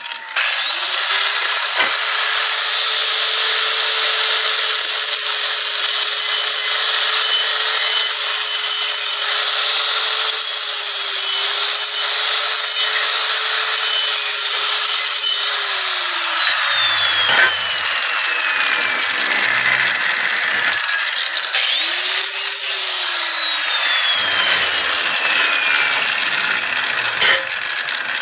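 Electric angle grinder running and grinding the edge of a steel piece with a steady motor hum and rough grinding noise. It is switched off about 16 seconds in and winds down with a falling whine, then is run again briefly and coasts down once more near the end.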